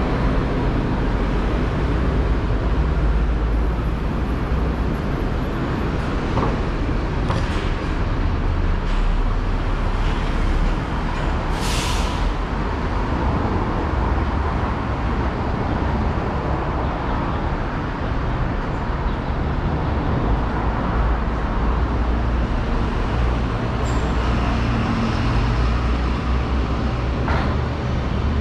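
Street traffic: a steady low rumble of passing vehicles, with a short sharp hiss about twelve seconds in.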